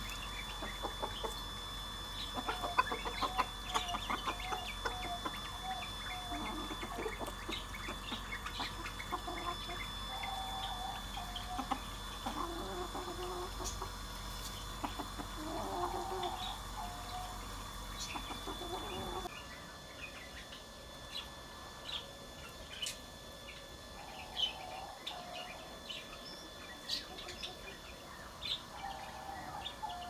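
A rooster clucking in short runs, with small birds chirping around it. About two-thirds of the way in, the clucking mostly gives way to the small birds' chirps.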